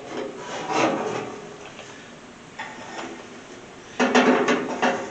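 Rubbing and scraping from hand work on an old welder's switch mechanism: a scraping stretch at the start, a single click midway, and a louder scrape near the end.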